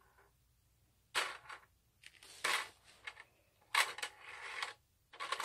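Several short clacking rattles of hard plastic from a children's slide-track toy, its small plastic figures clattering along the plastic track.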